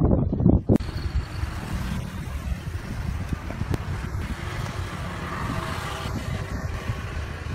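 Steady noise of road traffic passing close by, swelling about five to six seconds in, with a couple of faint clicks as concrete pavers are set down.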